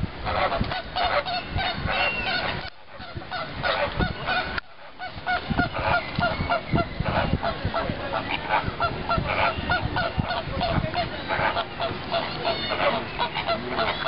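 A group of birds honking: a dense run of short, repeated calls, several a second, that dips briefly about three seconds in.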